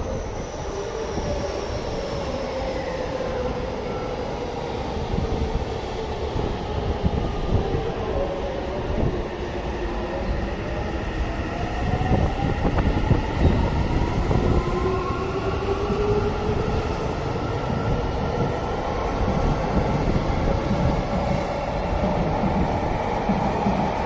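Seibu 6000 series electric train pulling out of the station and gathering speed. Its wheels rumble steadily on the rails, and its traction motors give off whining tones that climb in pitch from about ten seconds in as it accelerates.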